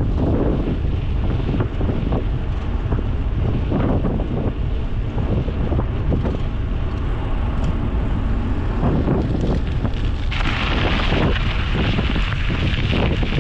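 Wind buffeting the microphone of a GoPro Hero 9 carried on a moving bicycle, a heavy, gusty rumble. About ten seconds in, a brighter hiss joins it and stays.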